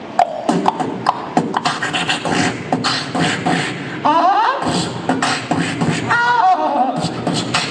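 Human beatboxing: quick vocal drum hits in a steady rhythm, with a rising pitched vocal sweep about four seconds in and a warbling pitched vocal tone around six seconds.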